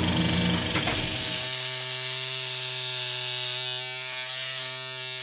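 A steady, low-pitched electric buzz. In about the first second and a half it comes with a rattle of clicks and a rising sweep.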